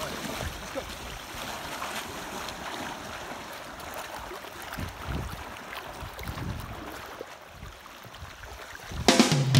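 River current rushing and splashing around anglers' waders as they wade through shallow water. Guitar music comes in near the end.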